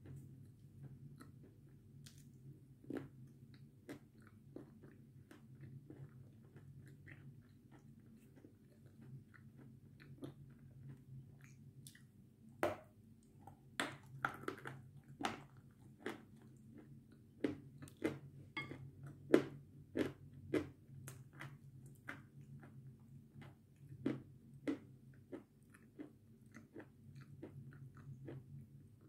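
A person chewing and biting crunchy food close to the microphone, with crisp crunches that come thickest and loudest in the middle stretch.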